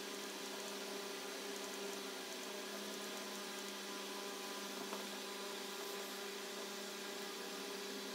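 Steady hum and hiss of background room noise, with one faint tap about five seconds in.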